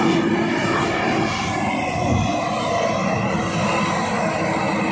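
Mitsubishi Triton pickup's engine working under load as the truck climbs through deep mud: a loud, steady drone with one held tone, easing slightly for a moment before building again.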